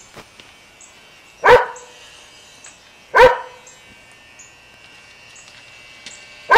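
A dog barks three times: about a second and a half in, about three seconds in, and again at the very end. Under the barks runs the faint steady buzz of electric hair clippers cutting hair.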